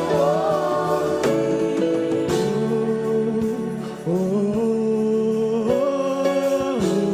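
Gospel worship song: voices singing long held notes over sustained instrumental chords that change every second or two, with a few sharp percussive hits.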